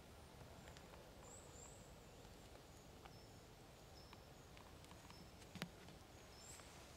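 Near silence with faint, short, high calls of small birds now and then, a few soft ticks, and one sharper click a little past halfway.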